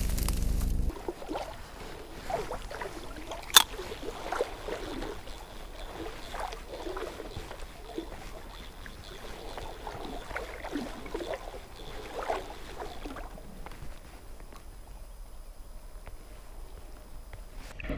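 Muffled, irregular gurgling and sloshing of stream water picked up by a camera held underwater, with a single sharp click about three and a half seconds in. A low rumble cuts off after the first second.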